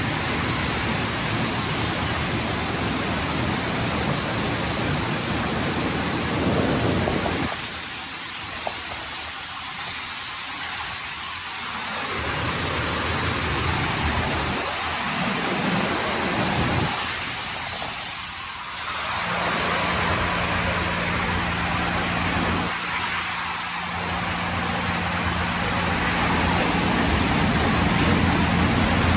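Mark VII SoftTouch XT in-bay automatic car wash at work on a car: water spray and spinning foam brushes scrubbing the body and glass make a steady rain-like rush that thins out a few times. A steady low hum comes in a little past the middle and stops shortly before the end.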